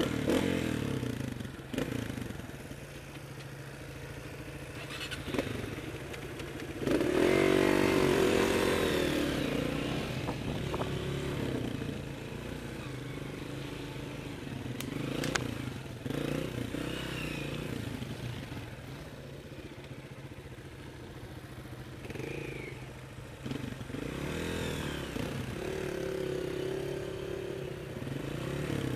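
Dirt bike engine running over rough off-road ground, its pitch rising and falling again and again as the throttle is opened and closed, with the loudest rev about seven seconds in. A few sharp knocks come from the bike jolting over the ruts.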